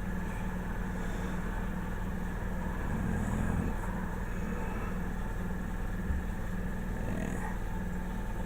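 Small airbrush compressor running steadily, a low, evenly pulsing hum.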